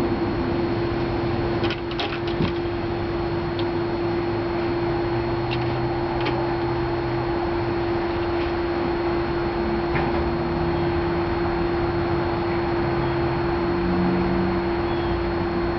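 Steady machine hum with one constant pitch, with a few light clicks about two seconds in.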